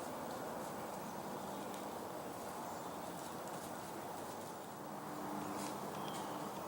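Steady outdoor background hiss with a few faint clicks and ticks.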